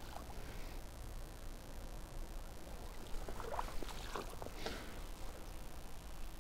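Shallow river water splashing and sloshing in a few quick strokes about halfway through, over a steady low rumble.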